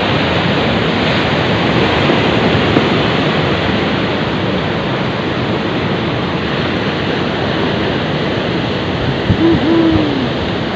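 Steady wash of sea surf against a breakwater, mixed with wind buffeting the microphone. About nine seconds in, a brief pitched sound stands out over it.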